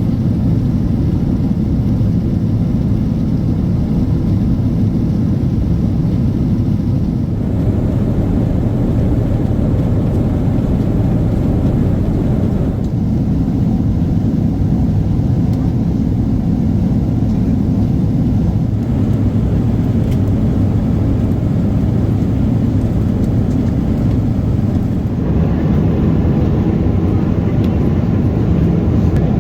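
Steady low rumble of cabin noise inside a Boeing 777-300ER, engine and airflow sound. Its character shifts abruptly a few times.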